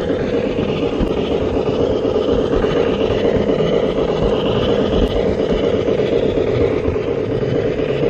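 LGB IVK narrow-gauge steam locomotive model running with its train on garden-railway track, its built-in mfx sound playing: a steady, continuous running sound with the wheels rolling on the rails.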